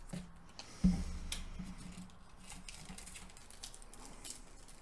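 Small plastic parts bag rustling as it is picked up and handled, with a soft thump about a second in.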